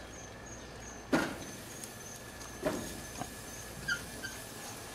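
Halved green bell peppers set down on a gas grill's metal grate: a few light knocks and clatters, the sharpest about a second in and another near the middle, with a short squeak near the end. A faint steady high tone runs underneath.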